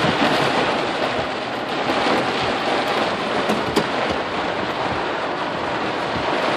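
Heavy rain pelting a Jeep Wrangler's roof and windshield, heard from inside the cabin as a steady, dense hiss, with one short click about four seconds in.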